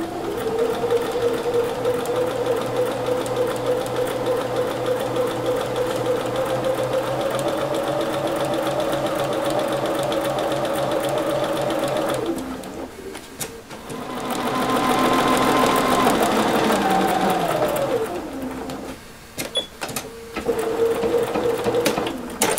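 Electric sewing machine stitching a hem: a long steady run of about twelve seconds, then a second, faster run that slows and stops, a few clicks, and a brief final burst of stitching.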